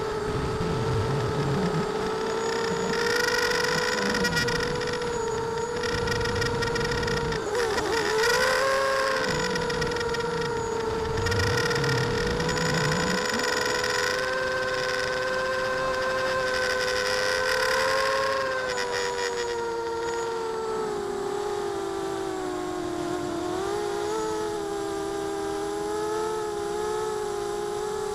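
Electric motors and propellers of an ImmersionRC Vortex FPV racing quadcopter whining steadily in flight, the pitch wavering up and down with the throttle.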